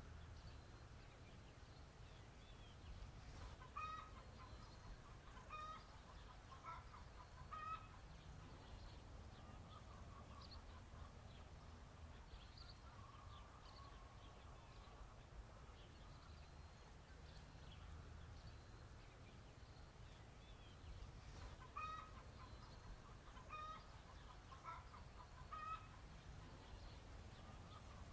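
Faint chicken clucking: two runs of about four short clucks, one about four seconds in and one about twenty-two seconds in, with a few fainter calls between, over a low steady rumble.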